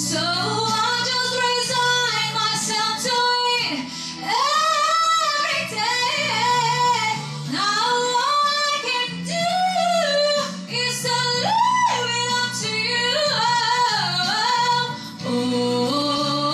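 A young woman singing a slow song solo, with held notes that waver in vibrato and slide between pitches, over instrumental accompaniment.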